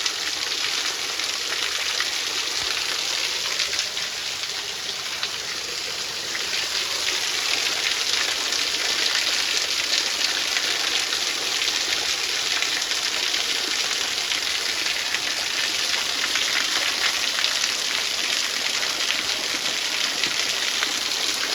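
Stephens Falls, a small waterfall running low among ice, splashing down onto rock as a steady hiss that gets a little louder about seven seconds in.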